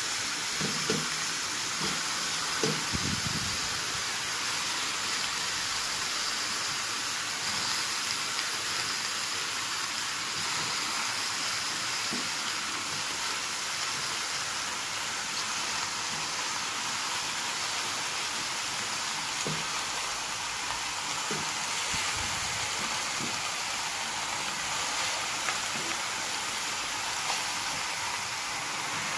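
Meat sizzling steadily in a metal kazan, with a few soft knocks as whole peeled potatoes are set down in the pot, a couple near the start and a few more past the middle.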